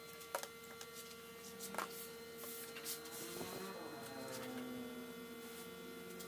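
Steady electrical hum, with a few faint clicks and knocks of small metal parts being handled.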